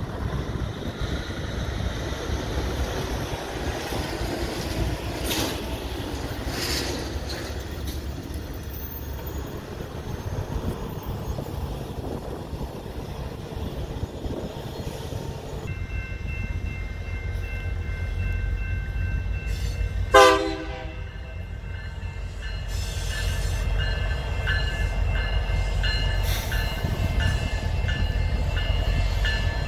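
EMD GP60M-3 diesel-electric locomotive switching loaded cement hoppers. Its low engine rumble grows as it comes back toward the listener, a steady high whine joins in about halfway, and one short horn blast, the loudest sound, comes about two-thirds of the way through.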